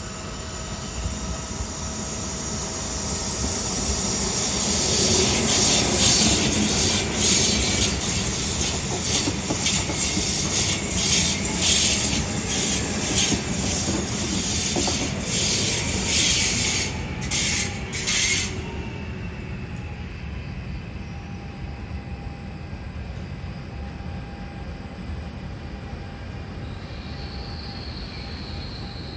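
A train passing through a station: it builds up over the first few seconds, then its wheels clack rhythmically over rail joints, about once a second, until the clacking stops abruptly after about eighteen seconds. A steady low rumble remains.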